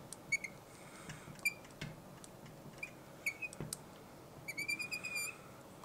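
Marker squeaking and tapping on a writing board as a word is written: a run of short, high squeaks and light ticks, with one longer squeak near the end.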